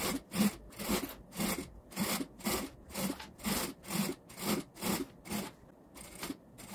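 Industrial sewing machine stitching slowly along a fabric edge, a regular rasping stroke about twice a second, with a brief pause near the end.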